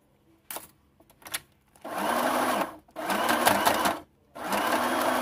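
Domestic sewing machine stitching fabric bias binding onto plastic in three short runs, each starting and stopping, the last still going at the end. A few light clicks come before the first run.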